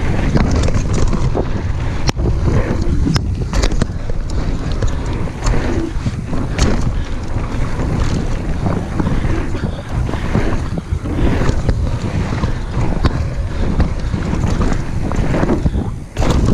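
Wind rushing over the microphone of a camera on a moving mountain bike, with irregular sharp rattles and knocks from the bike running over rough trail.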